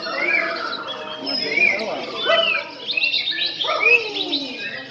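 Several songbirds singing at once, overlapping whistled phrases and quick chirps that glide up and down in pitch.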